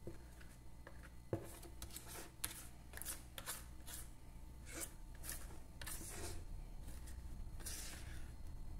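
Plastic spatula scraping thick homemade soap batter out of a plastic bowl: a string of short, soft scrapes, with one light knock about a second in.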